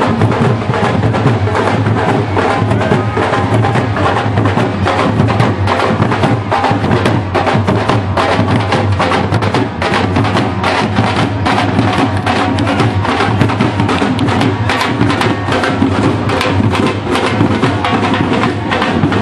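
Street percussion band playing a fast, steady drum rhythm.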